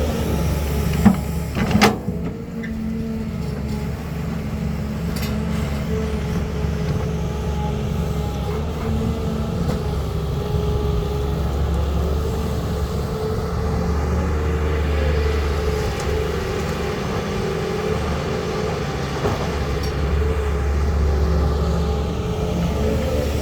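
Caterpillar 320 hydraulic excavator at work: its diesel engine runs steadily with a low drone and a steady mid-pitched tone over it. Two sharp knocks come about one and two seconds in.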